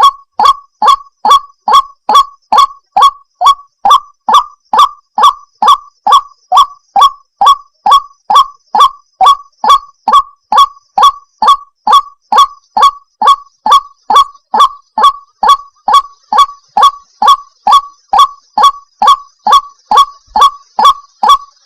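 White-breasted waterhen repeating its loud 'wak' call evenly, a little over two notes a second, each short note dropping slightly in pitch.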